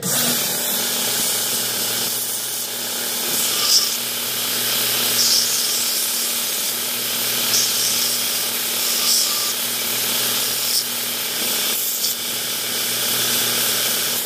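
Belt sander running, its motor humming steadily under the rush of the abrasive belt, as a phenolic spacer is pressed against the belt to grind a corner off. Several brief, higher-pitched scrapes stand out over the steady noise.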